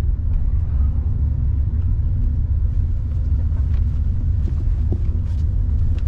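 Steady low rumble of a taxi driving, heard from inside the car's cabin, with a few faint clicks over it.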